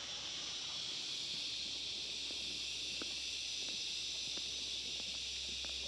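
Faint steady high-pitched hiss of an insect chorus, with a few faint clicks.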